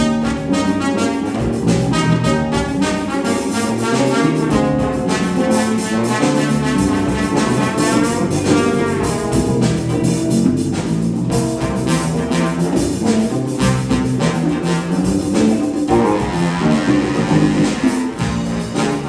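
Jazz ensemble playing a funk tune live, with a trombone playing the lead line over electric guitar, electric bass, drums and congas.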